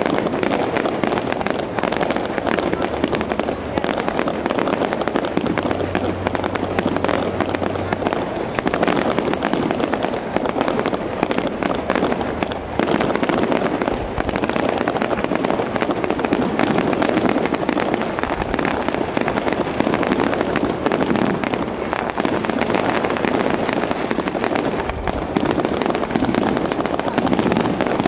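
Fireworks display in a dense barrage: shells bursting in quick succession with continuous crackling, and a few deeper booms standing out about halfway through and near the end.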